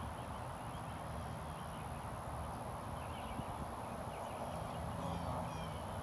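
Outdoor ambience: a steady low rumble with scattered short bird chirps, more of them in the second half.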